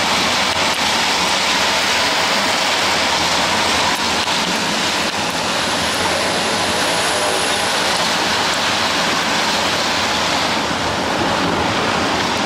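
Steady rush of air and road noise from a moving car.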